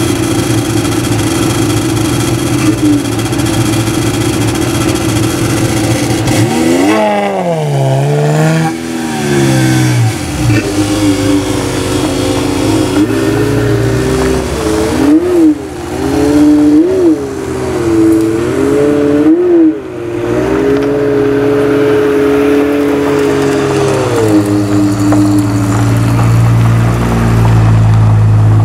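Ferrari F355 Spider 3.5-litre V8s idling, then one is revved hard once, rising and falling in pitch, and blipped several times in quick, short revs as it pulls away. Near the end a lower, deeper engine grows louder as an Aston Martin DB7 Vantage's V12 passes close by.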